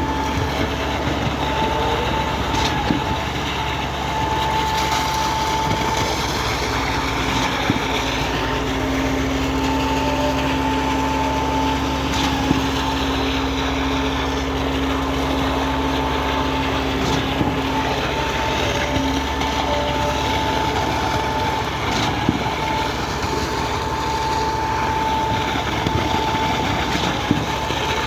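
Cifa K42L truck-mounted concrete pump running steadily, its engine drone joined by a whine that comes and goes, with a few sharp knocks along the way.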